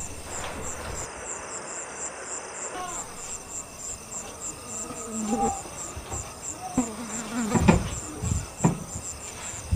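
Crickets chirping steadily at night, an even high chirp about three times a second, with a few soft thumps and rustles in the second half.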